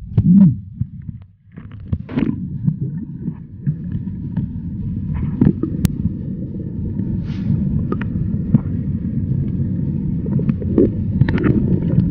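Underwater recording from a submerged camera: a muffled, low rumble of moving river water, with scattered knocks and pops.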